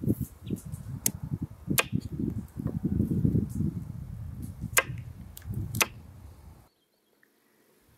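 A knife slicing a carrot on a wooden board, with four sharp knocks as the blade strikes the wood, over a low rumble. The sound cuts out abruptly near the end.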